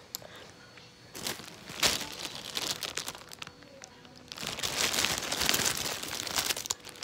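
A thin plastic bag with candy inside crinkling as it is handled, in two long bouts with a short lull between them.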